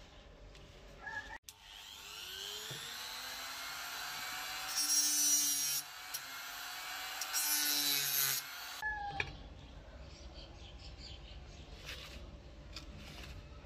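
Small rotary tool spinning with a thin cutting disc, its whine rising and falling, cutting into a rusted screw head on a brass rifle butt plate in two loud hissing bursts about five and seven seconds in. Before and after it, a flat screwdriver scrapes and clicks against the rusted screw.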